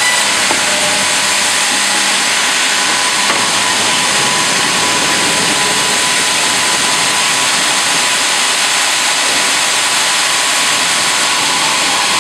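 Hydraulic vertical band saw cutting lengthwise through a log on a log carriage: a steady, loud hiss of the blade in the wood over the hum of the machinery.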